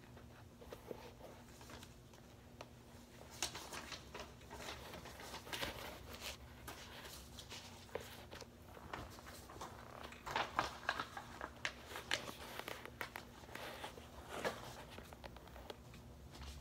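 Irregular rustling, light creaks and soft knocks from a worn suede Adidas Gazelle shoe being dangled and flexed on a bare foot, the shoe rubbing against the heel and its sole tapping the floor. A faint steady hum runs underneath.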